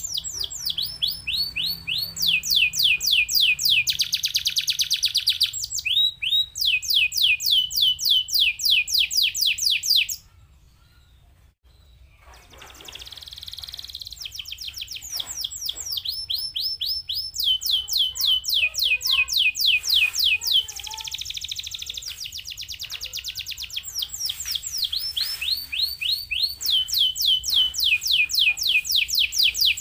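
Domestic canary singing: long, fast trills of rapidly repeated down-sweeping high notes. The song breaks off for about two seconds about a third of the way in, resumes softly with scattered notes, then builds back into loud trills.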